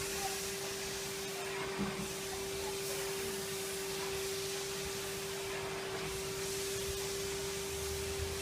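Numatic Henry canister vacuum cleaner running steadily while hoovering carpet: a constant hum over a rush of air, with a deeper rumble coming in near the end.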